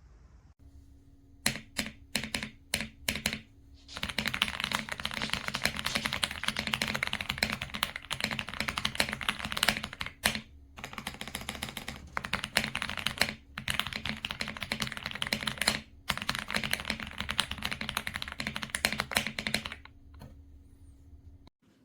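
Typing on an Epomaker x Aula F65 mechanical keyboard with Graywood V3 switches. A few separate keystrokes come first, then a long run of fast continuous typing with brief pauses, stopping near the end.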